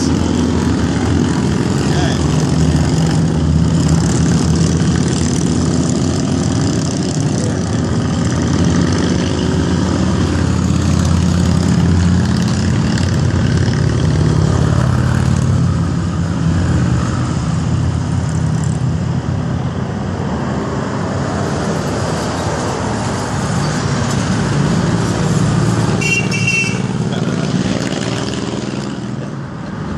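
A stream of cruiser motorcycles riding past on a curving road, their engines rumbling steadily as one after another goes by; the rumble eases after about sixteen seconds as the pack thins, and cars pass near the end.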